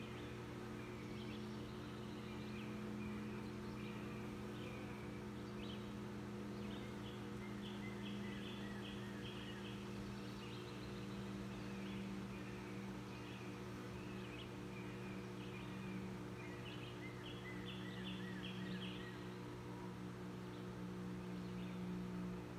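Honey bees humming steadily around an opened nuc as their frames are lifted into a hive box: a low, slightly wavering drone. A bird calls in short chirps, with quick runs of notes twice.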